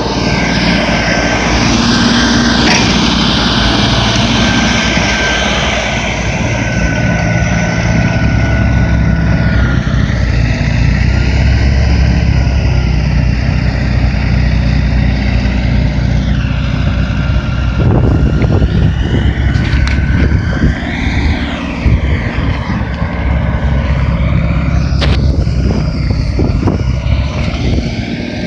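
LS XR4155H compact tractor's 55 hp diesel engine running steadily, with a thin whine over it and a few knocks and rattles in the second half.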